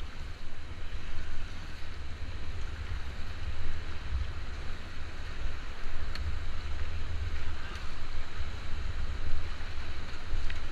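Wind buffeting a GoPro's microphone, a heavy fluttering rumble over the steady rush of river water around an inflatable raft.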